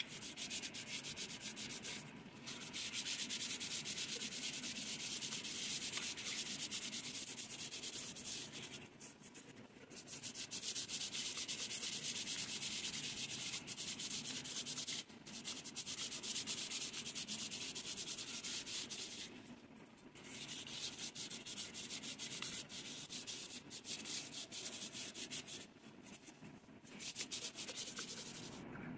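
Sandpaper being rubbed by hand over a brass bowl, a dry scratchy rasp of quick back-and-forth strokes. It comes in spells of several seconds with brief pauses between them as the surface is sanded down.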